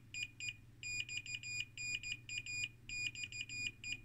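Fluke 115 multimeter's continuity beeper chirping in short, irregular high-pitched beeps, broken by gaps, as the chopper relay's contacts are nudged by hand and make and break contact. Each beep marks a moment of contact closure.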